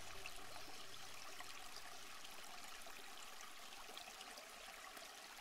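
Faint, steady trickle of water in a reef aquarium, while background music fades out in the first second or so.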